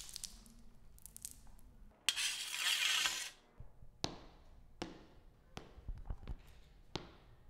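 Homemade foley effects: a harsh, noisy crash lasting about a second and a half, then five sharp knocks at an even pace, about three-quarters of a second apart.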